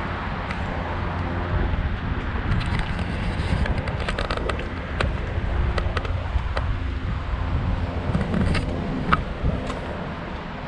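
Steady low outdoor rumble on a handheld camera's microphone while walking across a steel truss road bridge, with clusters of light clicks and scrapes a few seconds in and again near the end.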